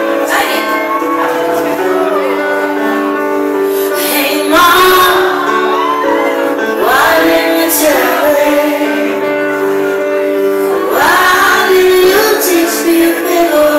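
Live pop band playing, with keyboard chords, bass guitar and drums, and a woman singing in long drawn-out phrases.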